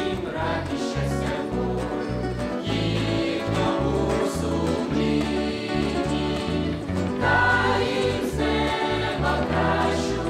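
Mixed choir of men and women singing a hymn in Ukrainian, carried by electric bass guitar notes underneath and guitar accompaniment.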